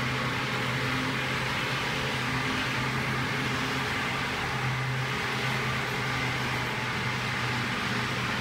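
Model train running on a layout track: a steady electric motor hum with a low tone that fades in and out.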